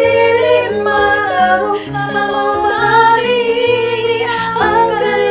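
Several women singing a Cebuano religious song in harmony, with sustained notes, over a Roland BK-3 electronic keyboard accompaniment with a moving bass line.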